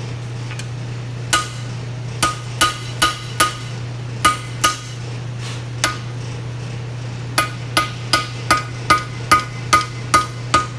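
Hand hammer striking a red-hot 5160 steel knife blank held in tongs on an anvil, each blow a sharp ringing strike. A few scattered blows come first, then a quick regular run of about two to three a second in the second half, over a steady low hum.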